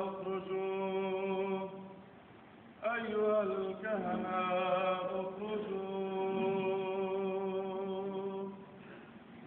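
Orthodox church chant sung by a male voice in long held notes. One phrase ends about two seconds in, and after a short pause a second phrase starts, moving in pitch at first and then holding a steady note until it stops near the end.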